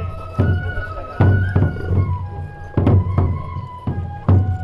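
Japanese festival procession music: a bamboo flute playing a melody over heavy drum strokes, about five strokes, roughly one a second but unevenly spaced.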